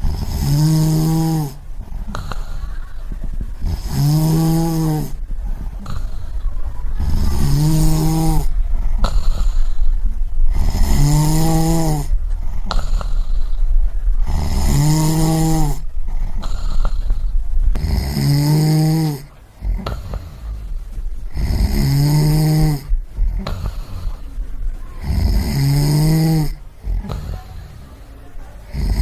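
A person snoring in a slow, regular rhythm: a pitched snore about a second long comes roughly every three and a half seconds, eight times, with a low rumble between them.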